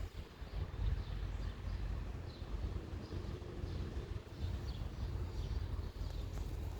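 Birds chirping now and then, short falling chirps, over a steady low rumble.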